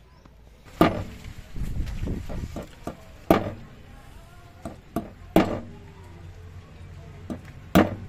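Small hammer striking the pin of a timing chain's joining link held on a stone slab, peening the pin to lock the link. Four sharp blows, one every two to two and a half seconds, with lighter taps between.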